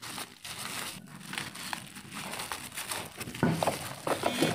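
Plastic bubble wrap crinkling and crackling as hands handle a wrapped package and start cutting it with scissors. The crackles grow louder in the last second or so.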